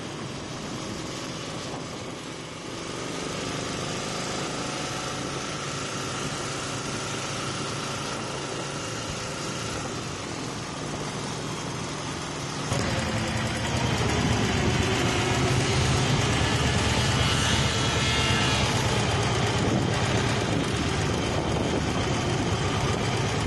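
Small engines running: the motorcycle carrying the camera along with the Super Goat motorglider's engine, over a steady rushing noise. About halfway through, the sound cuts suddenly to a louder, steadier engine hum as the motorglider taxis close by, and a whine rises and falls in pitch a little later.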